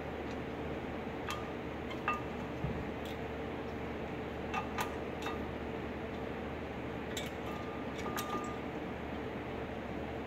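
Scattered light metallic clicks and clinks of a brake caliper and pads being worked onto the rotor and bracket, about eight in all, a few ringing briefly, over a steady background hum.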